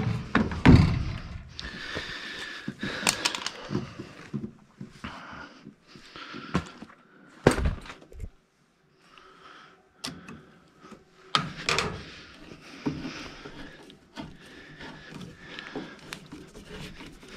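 Hand work on a gas furnace: irregular knocks, clicks, scraping and rustling as tools and sheet-metal furnace parts are handled, with a short near-silent pause about eight seconds in.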